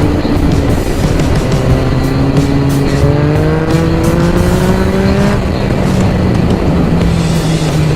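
Yamaha MT-09's three-cylinder engine through an Akrapovič exhaust with the baffle removed, accelerating with its pitch rising steadily for about three seconds, then dropping away about five seconds in.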